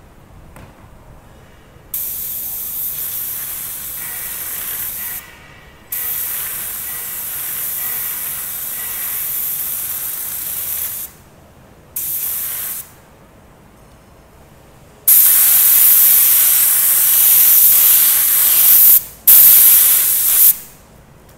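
Compressed-air spray gun spraying heat-resistant contact adhesive, a hiss that comes in five separate bursts of one to five seconds each. The last two bursts are much louder than the first three.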